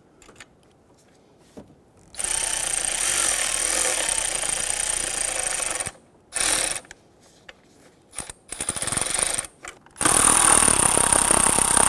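Milwaukee M12 Fuel cordless ratchet running down two 10 mm bracket bolts into the intake. It runs steadily for about four seconds starting two seconds in, gives a short burst, then a few clicks, and runs again for the last two seconds as the bolts snug down.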